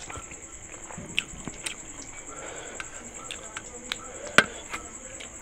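Eating sounds from bare fingers mixing rice and fish curry on a metal plate, with mouth smacks: a string of short sharp clicks, the loudest about four seconds in. A steady high chirring of insects runs underneath.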